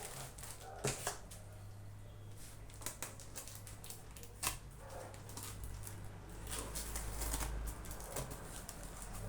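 Books and packaging being handled: scattered clicks, taps and paper rustles, with a sharp tap about a second in and another about four and a half seconds in.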